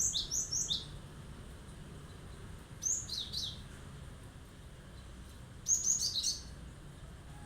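Cinereous tit (gelatik batu) singing sharp, high phrases: three quick bursts of falling notes, a few seconds apart, over a faint low hum.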